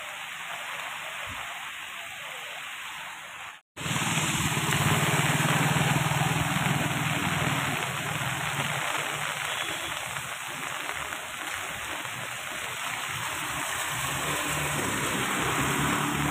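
Steady hiss of rain and running floodwater on a street. After a sudden cut about four seconds in it grows louder, with a motorcycle engine humming as the bike rides through the floodwater and throws up spray; the hum is strongest just after the cut and again near the end.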